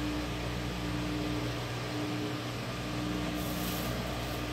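Steady electric hum and hiss from a Boss Katana 100 MkII guitar amplifier left on with no guitar being played. A brief scratchy rustle comes about three and a half seconds in.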